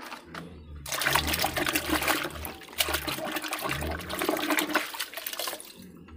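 Soapy water splashing and sloshing in a plastic basin as a hand swishes through it, washing a toy car. It starts about a second in, goes on in repeated strokes, and dies down near the end.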